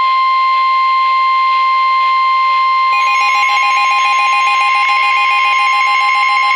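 Emergency alert warning tone: a loud, steady single-pitch tone of about 1050 Hz, the attention signal that precedes a National Weather Service warning. About three seconds in, a second, rapidly pulsing beep tone joins it.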